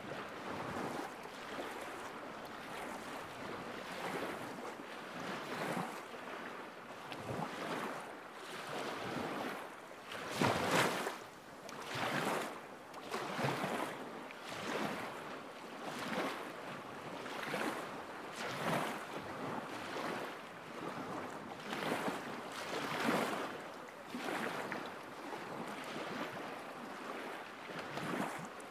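Small lake waves lapping against the shore, a wash of water about every second, uneven in strength, with one louder splash about eleven seconds in.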